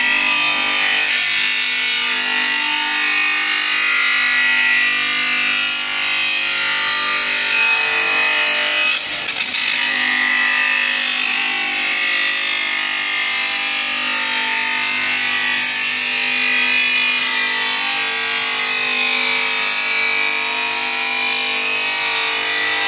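Manual shaped-glass edging machine grinding the edge of a glass sheet: a steady motor whine with grinding noise, briefly dipping about nine seconds in.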